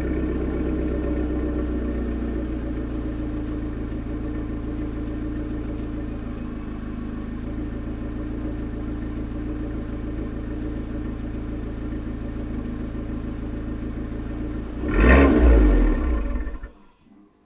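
2012 Abarth 500C's 1.4-litre turbo four-cylinder idling steadily through its stock exhaust after a cold start, the fast idle having settled down. About fifteen seconds in the sound swells louder for a moment, then cuts off.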